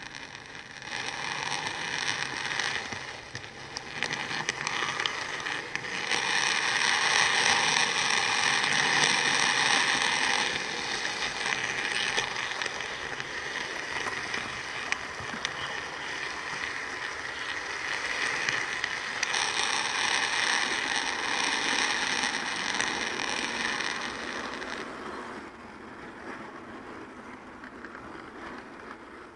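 Hornby OO gauge model train, a Battle of Britain class locomotive hauling Pullman coaches, running along the model track with a steady mechanical rattle. It grows louder twice as the train runs close by, then fades near the end.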